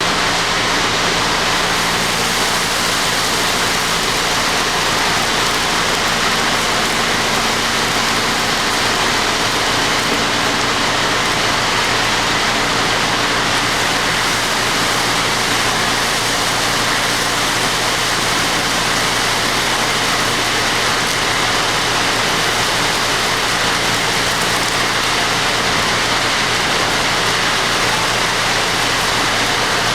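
Foundry melting furnace and plant running: a loud, steady rushing noise with a low, even hum underneath that does not change.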